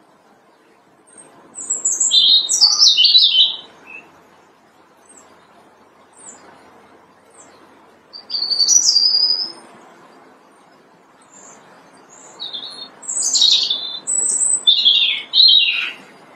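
European robin singing: three phrases of high, quickly varied notes with pauses between. The first comes about a second in, the second about eight seconds in, and the longest one near the end.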